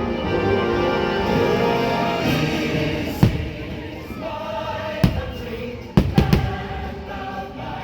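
Fireworks show soundtrack of a choir singing over an orchestra, with firework shells bursting over it: one a little past three seconds in, one at about five seconds, then a quick cluster of three around six seconds, the bangs louder than the music.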